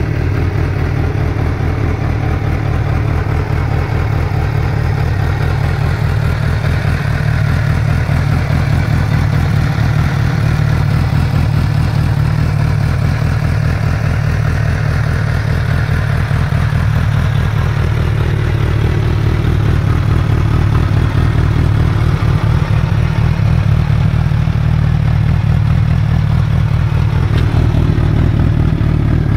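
Suzuki B-King's 1340 cc inline-four idling steadily through a decat Yoshimura dual oval exhaust with the EXUP valve removed, growing a little louder toward the end.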